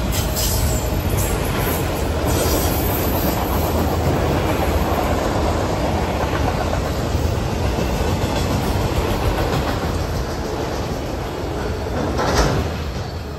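Autorack freight cars rolling past at close range: a steady rumble of steel wheels on rail. A brief louder burst of noise comes near the end, then the sound starts to fall away as the rear of the train passes.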